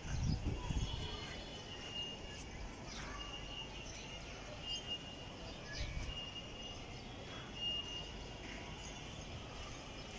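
Small birds chirping off and on, short high calls every second or so, over steady background noise. A low rumble on the microphone just after the start and again about six seconds in.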